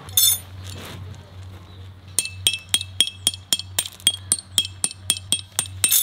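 Small hammer striking metal backpacking tent stakes to drive them into gravel. A single clink comes near the start, then from about two seconds in a quick, even run of ringing metallic taps, about four a second.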